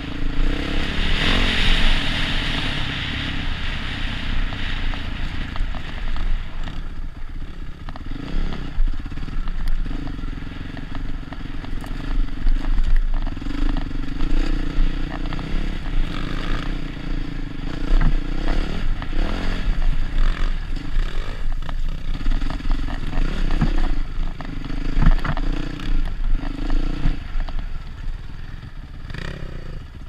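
KTM 990's V-twin engine ridden over a rough gravel and rock track, its note rising and falling with the throttle, with stones clattering and knocking under the tyres and chassis.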